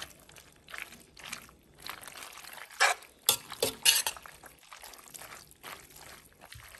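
Metal spoon stirring creamy bow tie pasta in a pot: wet squelching, with a few sharp scrapes of the spoon against the pot about three to four seconds in, the noise she calls 'raking'.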